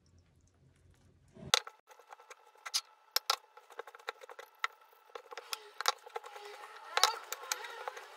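A hand mixing flour and water into a shaggy dough in a glass bowl: irregular crackly squishing and rustling with sharp clicks, starting about a second and a half in.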